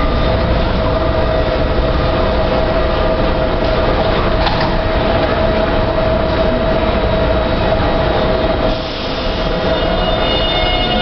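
Siemens C321 metro train standing at the platform, its onboard equipment giving a steady hum under loud station noise. Near the end, a set of higher whining tones starts up as it begins to pull out.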